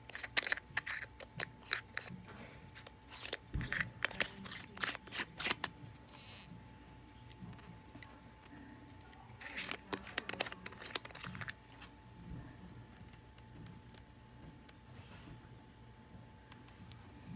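Silverode pocket watch case being handled as its bezel is screwed back on: clusters of small metallic clicks and scrapes, then a stretch of faint, evenly spaced ticking from the running watch.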